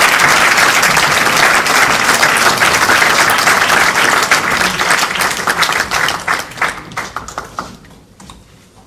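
Audience applauding, the clapping thinning to scattered claps after about five seconds and dying away near the end.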